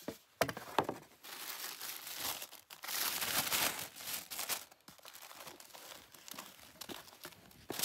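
Black tissue paper rustling and crinkling as it is folded back inside a gift box, loudest in the first half, then softer rustling as the fabric tote bag is handled and lifted out.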